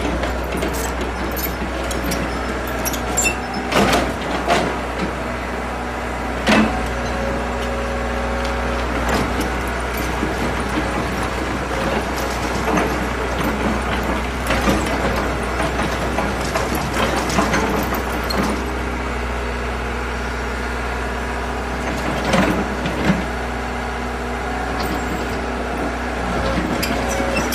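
Caterpillar E70B excavator's diesel engine running steadily with a low hum, with a few sharp clanks and knocks, the loudest about six and a half seconds in and two more around twenty-two seconds in.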